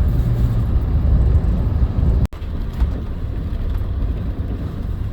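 Toyota Tundra pickup driving through deep snow on an unplowed highway: a steady low rumble of engine and tyres. The sound drops out for an instant a little over two seconds in.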